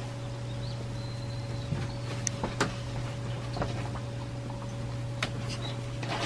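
A steady low hum with a fixed higher tone over it, broken by a few short, light clicks and taps.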